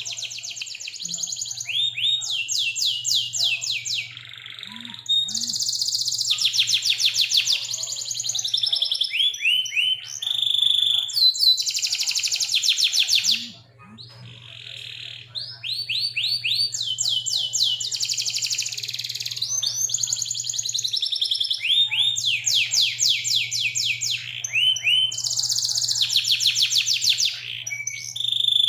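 Domestic canary singing a long song of fast trills and rolls, rapid strings of repeated notes and rising and falling whistles, with a short lull about halfway through. A faint steady low hum runs underneath.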